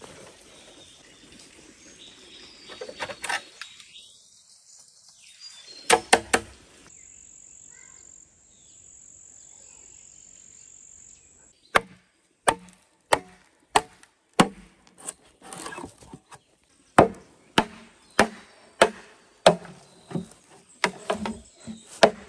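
Machete chopping into a green bamboo pole: a long run of sharp, evenly spaced cutting strikes, somewhat under two a second, starting about halfway through. Earlier there is a short cluster of loud knocks.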